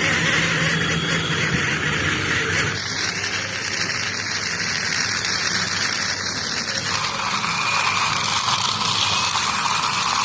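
Toy vehicle's engine sound effect running steadily, shifting in pitch about three seconds in and again about seven seconds in.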